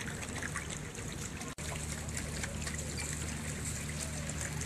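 Floodwater trickling and running, a steady wash of water noise with a low hum underneath. The sound drops out for an instant about a second and a half in.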